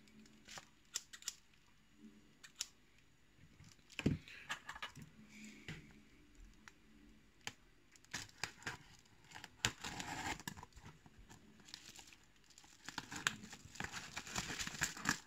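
Paper mailing envelope being torn open by hand: scattered rips, crinkles and small clicks of paper, getting busier near the end.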